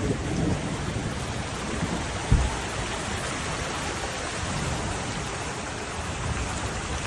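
Steady rushing noise of heavy rain and floodwater, with one brief low thump about two seconds in.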